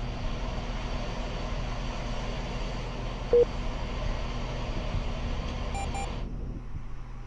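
Steady ambient noise over a low hum, with a short beep about three seconds in and a quick double beep near six seconds. Right after the double beep the hiss suddenly drops away and only the low hum remains: a headphone's active noise cancelling being switched on.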